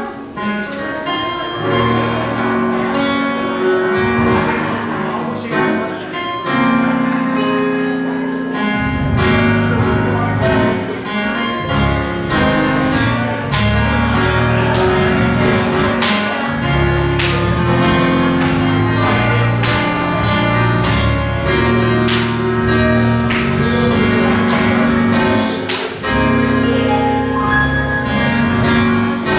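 Instrumental gospel church music: keyboard chords over a bass line, with a steady beat of sharp percussion hits.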